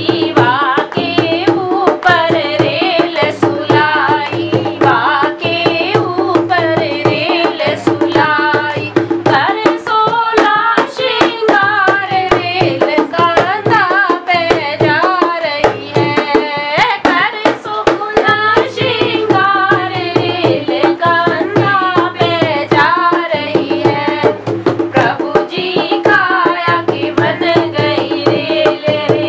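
Dholak, a rope-tensioned two-headed barrel drum, played with bare hands in a steady, driving rhythm, with a girl's voice singing a Hindi devotional bhajan over it.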